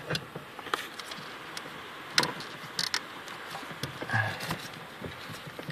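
A handful of light, scattered clicks and taps from hands working on parts and wiring under a pickup's dashboard, with a brief low murmur of a voice about four seconds in.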